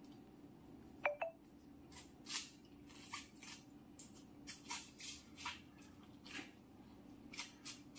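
Sucking and squeezing the liquid out of a plastic stick-pack sachet: a sharp, short squeak about a second in, then a string of brief, irregular hissy slurps as the last of the liquid is drawn out.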